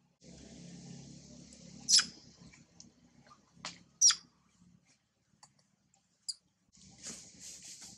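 Macaque squeaks: two loud, sharp, very short squeaks about two seconds apart, with a few fainter ones, and stretches of rustling noise at the start and near the end.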